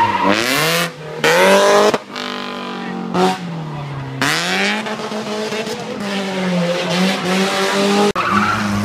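BMW E30 3 Series rally car accelerating hard out of a corner. The engine revs up in pitch and drops back at gear changes about one and two seconds in, falls away briefly, then pulls again and settles to a steadier, more distant note.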